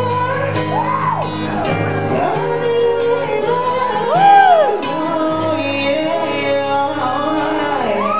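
Live male vocal over strummed acoustic guitar: the singer holds notes and sings sweeping rising-and-falling runs without clear words, the biggest swoop about halfway through.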